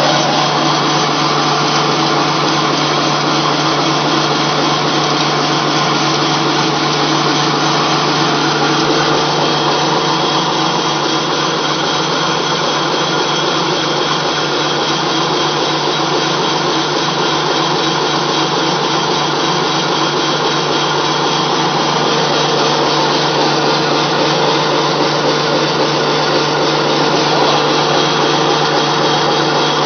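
Flat die pellet mill running steadily under load, a loud continuous mechanical whirr with a constant low hum, as it presses animal feed into pellets.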